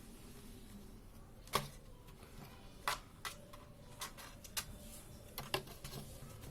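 Scattered light clicks and taps, about seven at irregular intervals, the loudest about a second and a half in: a kitten moving about inside a plastic pot.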